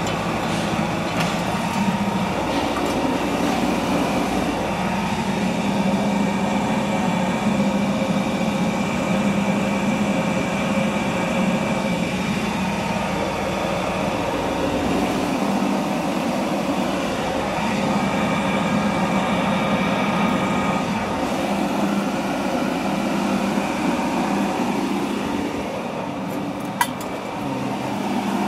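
Electric-motor-driven banana-stem and grass chopper running at a steady speed, a continuous mechanical hum from the motor and V-belt drive. It runs smoothly, with little vibration or shaking.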